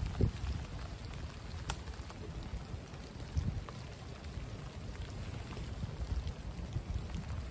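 Steady patter of rain, with a low rumble of wind on the microphone, a few soft thumps and one sharp click about a second and a half in.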